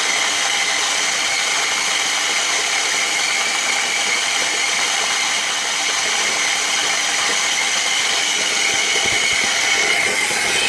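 Electric coffee grinder's motor running steadily as it grinds a load of light-roast coffee beans, a continuous high mechanical whirr.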